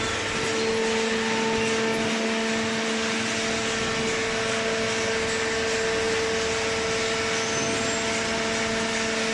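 Hydraulic baling machine running: a steady hum of its electric motor and hydraulic pump.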